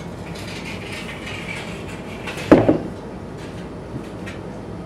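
A wooden flanging die and aluminum wing rib handled on a workbench: a light scrape of the parts sliding together, then one loud knock about two and a half seconds in as a die piece is set down, and a few faint ticks after.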